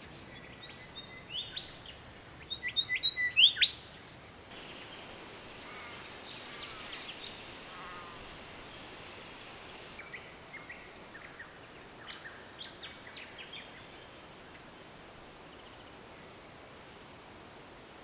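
Male golden whistler calling: a quick run of loud whistled notes ending in a sharp rising note about three seconds in, then softer scattered chirps. It is a territorial call warning other golden whistlers away.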